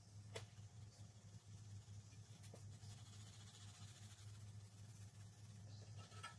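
Near silence: a crayon faintly scratching across paper as it colors in an area, over a low steady hum.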